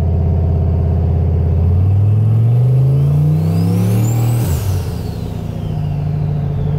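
A vehicle's engine heard from inside the cab, accelerating with its pitch climbing steadily, then dropping sharply at an upshift about four and a half seconds in and running steadily afterwards. A thin high whine rises and falls with the engine speed.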